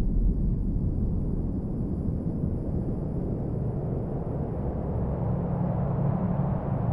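Steady low rumbling drone, with deeper sustained tones joining about five seconds in.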